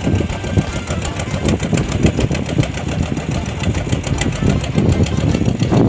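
An engine running steadily, loud and close.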